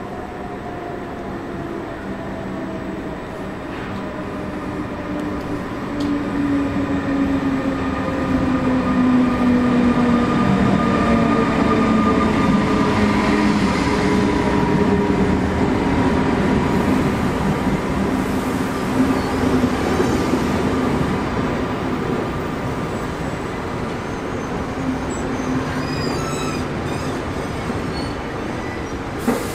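SBB Re 460 electric locomotive hauling Intercity coaches slowly past, its motor whine falling in pitch as it slows. It is loudest as the locomotive passes close by, with brief wheel squeals near the end.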